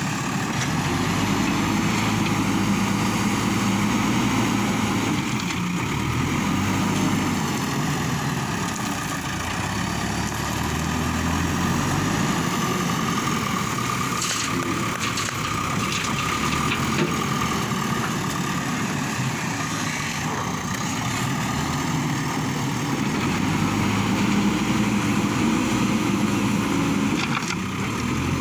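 Diesel engine of a JCB backhoe loader running steadily, its pitch rising and falling with the work, with a few short clatters around the middle.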